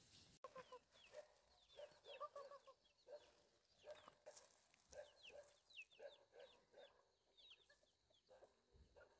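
A hen clucking in short, repeated calls while chicks peep with high, falling chirps.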